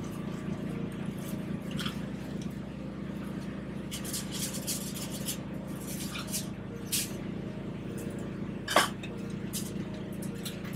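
Kitchen work clatter: scattered short clinks and knocks of utensils and containers, the sharpest about nine seconds in, over a steady low hum of running equipment.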